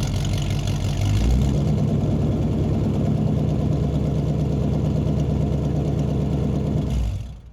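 Muscle car engine running at a steady, fast idle, stepping up slightly in pitch and loudness about a second in, then cutting off sharply near the end.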